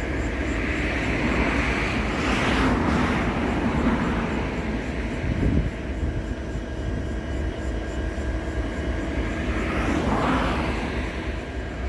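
EMD 16-710G3 turbocharged two-stroke 16-cylinder diesel of an SD70LC locomotive idling with a steady low rumble. A rushing noise swells up twice, a couple of seconds in and again near the end.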